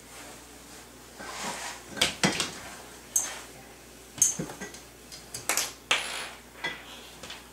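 Irregular clanks and rattles of a metal baby safety gate being grabbed and shaken by a baby, some knocks leaving a brief metallic ring.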